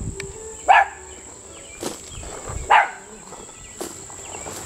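Dogs barking, two short barks about two seconds apart, over a steady high-pitched insect buzz.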